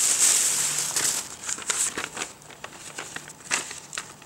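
Thin clear plastic bag crinkling and rustling as it is handled. It is a dense, continuous rustle for about the first second, then breaks into scattered short crackles.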